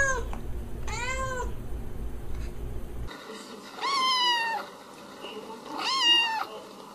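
A cat meowing: one meow trailing off at the start and another about a second in. Then a kitten meows twice, higher pitched, at about four and six seconds in.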